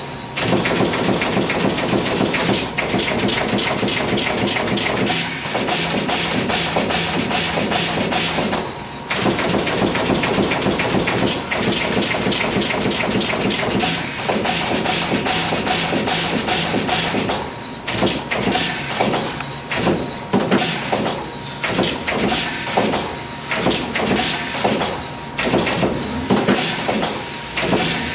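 Automatic multi-head PCB pin inserting machine running, a dense run of rapid mechanical clicks and knocks from its insertion heads, briefly dropping out about nine seconds in and dipping roughly once a second in the latter half.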